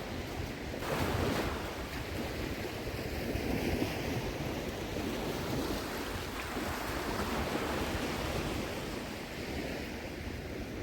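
Shallow sea water washing and sloshing, with wind noise on the microphone; the water swells briefly about a second in.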